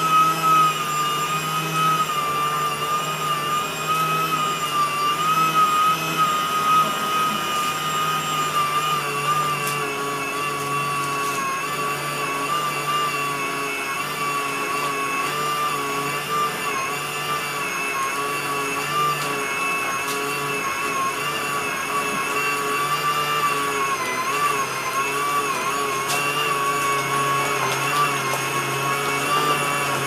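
Portable handheld washing machine's 350-watt electric motor running steadily while it churns clothes in a bucket of water, a high whine that wavers slightly in pitch.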